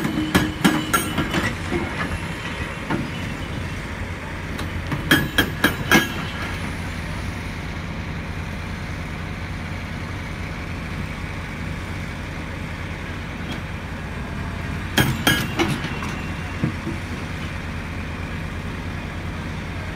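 Cat excavator with a hydraulic breaker hammer working rock: a steady diesel engine drone with three short runs of rapid, sharp strikes, at the start, about five seconds in, and around fifteen seconds in.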